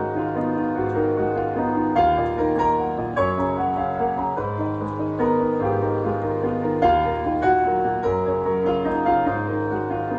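Piano music: slow chords with sustained bass notes, a new chord about every second or two.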